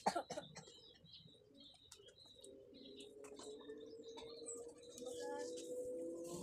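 Small birds chirping in short high notes, with a few sharp knocks at the very start; from about halfway a low steady drone builds up underneath.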